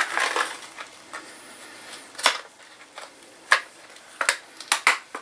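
Scattered light clicks and knocks of small bike parts and hand tools being picked up and handled during a bottom-bracket bearing job, most of them in the second half.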